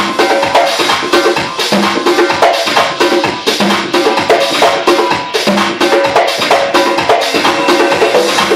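Live percussion played along with DJ music: many quick strikes over a steady dance beat.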